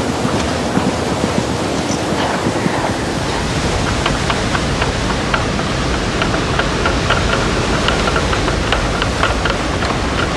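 Storm wind blowing hard and steadily. From about four seconds in, a light, irregular rattling joins it.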